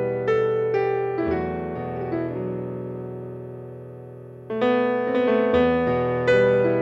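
Background piano music: a few notes, then a chord left to fade for about three seconds before the playing picks up again.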